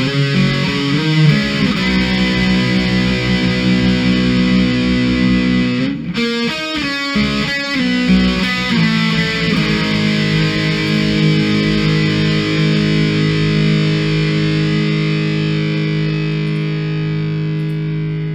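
Outro music: distorted electric guitar holding chords, with a short run of quicker notes about six seconds in, then a long sustained chord ringing out.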